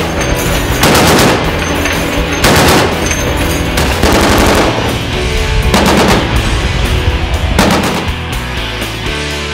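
Heavy machine guns firing at sea in about five short bursts of rapid shots, one every second and a half or so, over background rock music.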